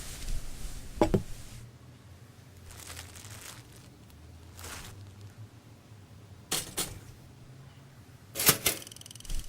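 A few sharp knocks in a quiet room: one about a second in, two close together near seven seconds and a louder cluster near the end, over a faint low hum.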